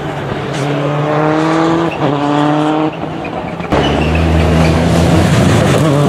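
Toyota Corolla WRC's turbocharged four-cylinder rally engine at full throttle, its pitch climbing through the gears with quick upshifts about two and three seconds in. Partway through, the sound jumps abruptly to a louder, closer pass of the car with a deep rumble.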